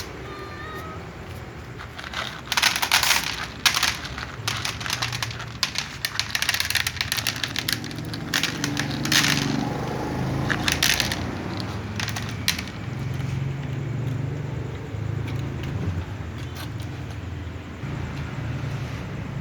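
Cats crunching dry food: a run of sharp crunches and crackles, thickest in the first half.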